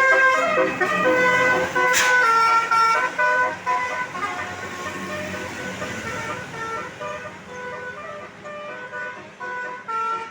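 Bus 'telolet' musical horn of the Basuri type playing a quick tune of several tones at once that step from note to note. It is loudest for the first four seconds or so and then grows fainter, with a sharp click about two seconds in.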